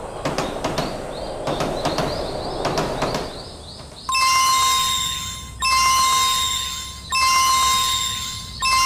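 A clatter of sharp knocks and rattles for about three and a half seconds. Then a level-crossing-style warning bell sound effect starts: one steady bell tone struck about every second and a half, each strike fading away.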